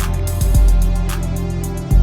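Background music: a produced track with a strong bass, a steady beat and a plucked guitar-like part.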